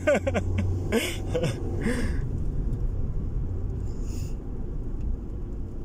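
Steady low rumble of a car's engine and tyres on the road, heard inside the moving car's cabin. In the first two seconds there are a few short breathy voice sounds.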